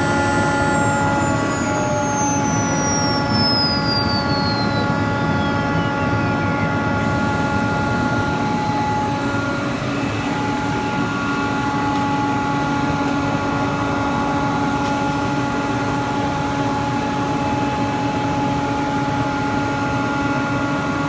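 CNC router running as it cuts MDF: a steady whine made of several fixed tones over a rushing cutting noise. A high whine falls steadily in pitch during the first few seconds.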